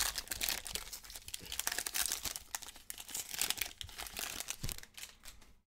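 Shiny foil wrapper of a Topps baseball card pack crinkling and tearing as it is ripped open and crumpled by hand, with dense irregular crackles that cut off suddenly near the end.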